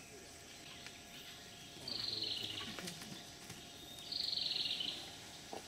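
Two high, buzzy trilled calls from a forest animal, each about a second long and about two seconds apart, over a faint steady drone of forest insects.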